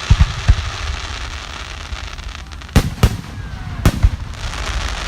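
Aerial fireworks display. There are deep booms of bursting shells right at the start, then three sharp bangs about three and four seconds in, over a continuous crackle of sparkling effects.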